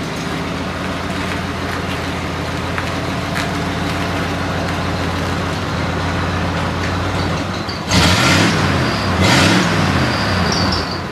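1992 Ford F-150 pickup's engine running at low speed while the truck reverses slowly. Near the end it is revved twice, each rev rising and falling in pitch.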